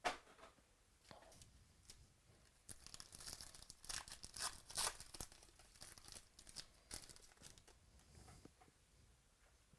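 Football trading-card pack wrappers being torn open and crinkled, quietly, with a sharp click at the start and the busiest crackling a few seconds in.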